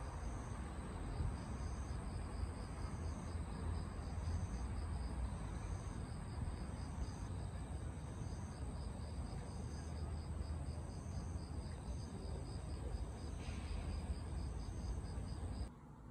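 Crickets chirping in evenly repeated high-pitched trills over a low, steady rumble of night-time ambience. It cuts off suddenly near the end.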